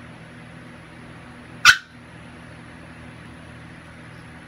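One short, sharp yelp from one of the playing pets, about a second and a half in, over a steady mechanical hum.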